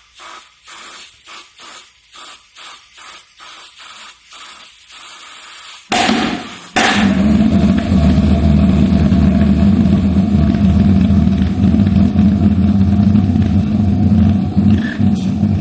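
Gasoline mini pulse jet engine being started: short rhythmic puffs, about three a second, then it catches about six seconds in and runs loudly and steadily with a drone.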